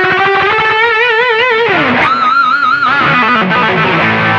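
Electric guitar with overdrive, recorded direct, playing sustained lead notes with wide vibrato: one note held and shaken about a second in, a slide down just before two seconds, then a higher note held with vibrato.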